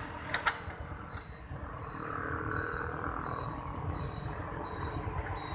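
Street traffic at a road junction with wind rumble on the microphone. A few sharp clicks come in the first second and a half, then a short high beep repeats about every three-quarters of a second.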